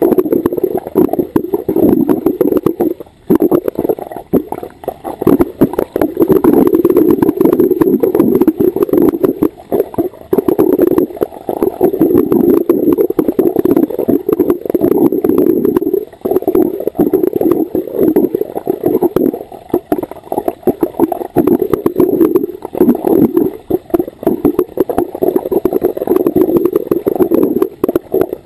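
Scuba regulator exhaust bubbles gurgling, heard underwater: long surges of bubbling a few seconds each, with a brief pause between breaths about every six seconds.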